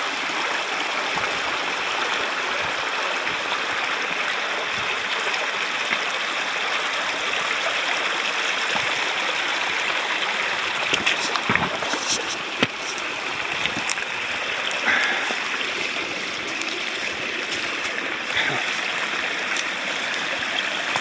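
Small hill stream running steadily, with a few sharp clicks a little past halfway.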